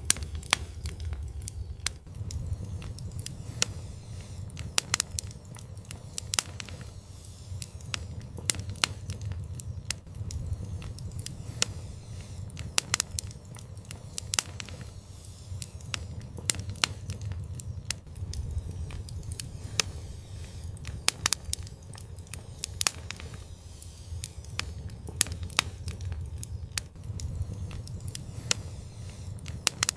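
Wood fire crackling: irregular sharp pops and snaps over a steady low rumble of the flames.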